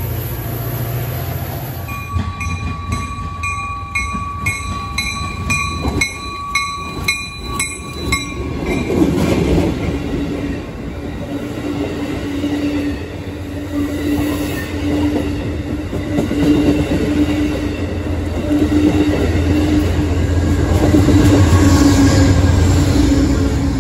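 A bell dinging rapidly for several seconds, then an Amtrak passenger train passing at speed: wheel and rail noise with a steady diesel hum, loudest near the end as the GE P42 diesel locomotive at the rear goes by.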